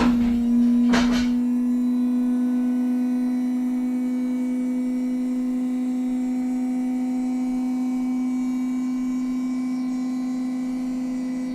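Electric car lift motor running with a steady hum as it raises the car, after a couple of knocks as it starts.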